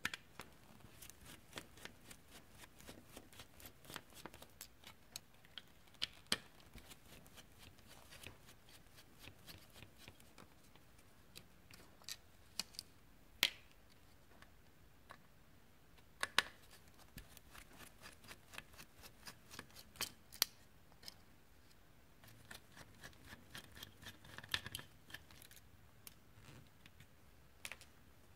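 Small screwdriver turning out the heatsink screws on an Nvidia Quadro NVS 420 graphics card: runs of light, evenly spaced clicks, with a few sharper, louder clicks and taps in between.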